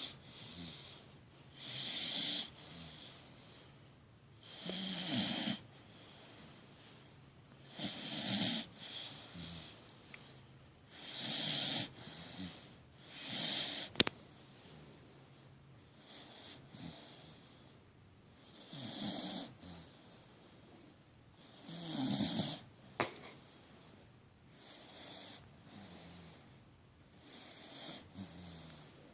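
Great Dane mix puppy snoring in deep sleep, a snore every two to three seconds with a few softer breaths in between. A single sharp click comes about halfway through.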